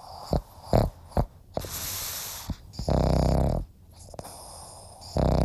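A dog making two long, low, rasping sounds about two seconds apart, after a few short clicks.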